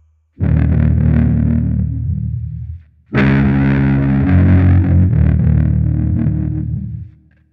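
Distorted electric guitar playing two long held chords. The first comes in sharply just after the start and stops after about two seconds; the second starts about three seconds in and rings for about four seconds before dying away.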